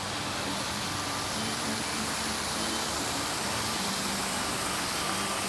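Steady rush of running water from a mini golf course water feature, with faint music playing over it in short notes at several pitches.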